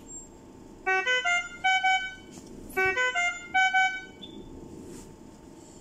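Puritan Bennett 980 ventilator alarm sounding: a short run of beeps at changing pitches, played twice in a row. It signals a low measured oxygen alarm.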